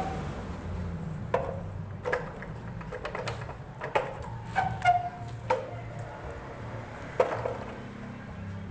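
Irregular sharp knocks and clinks of tools on metal parts of an electric motor being taken apart, some leaving a brief ring, over a steady low hum.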